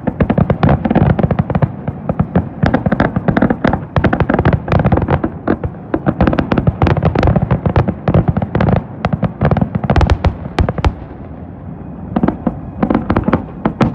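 Fireworks display: a dense, fast run of aerial shell bursts and crackling, many sharp bangs a second, easing briefly near the end before picking up again.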